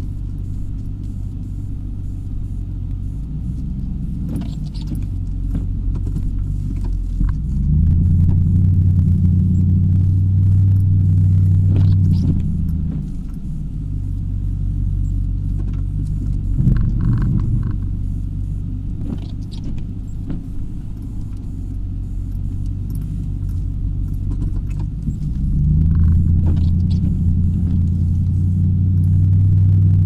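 Snowplow truck's engine running, heard from inside the cab, getting louder twice for about five seconds at a time as it works harder. A few short knocks are scattered through.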